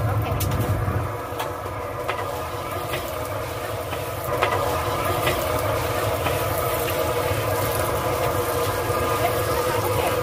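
Gas burner running steadily under a large kettle corn kettle while popcorn kernels sizzle in the hot oil. A wooden paddle stirring the kernels makes a few scattered scrapes and ticks.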